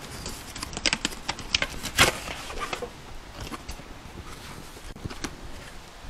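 A cardboard shipping box being opened and its packaging handled: a run of small clicks and rustles, the sharpest about two seconds in, thinning out after about three seconds.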